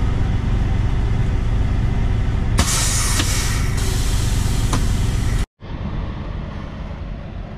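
Diesel truck engine of a Kenworth K200 cabover running, a loud steady low rumble heard from inside the cab, with a loud hiss over it from about two and a half seconds in. After a cut about five and a half seconds in, a truck engine idles more quietly.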